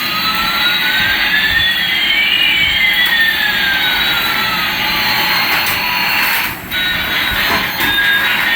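Jet-engine sound effect: a steady rushing hiss with one whine rising and another falling, crossing about two seconds in, and a brief drop-out near the end.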